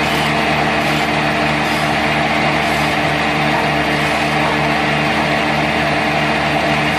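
Homemade sawmill's engine running steadily at constant speed.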